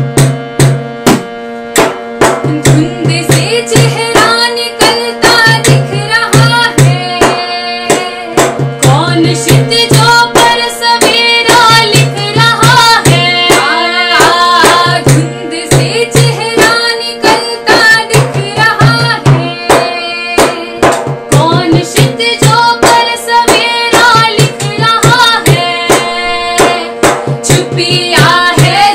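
Two women singing a Hindi protest song in phrases over fast, steady strokes on a large hand-played drum, with a steady held drone underneath.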